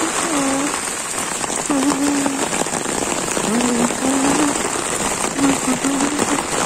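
Heavy rain falling steadily on leaves, grass and a paved lane, an even hiss of drops. A low wavering tone comes and goes several times over it.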